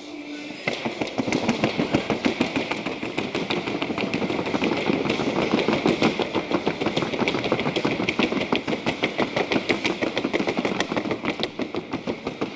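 A trocha horse's hooves striking a wooden sounding board in a fast, even clatter, a quick run of sharp taps with no pause.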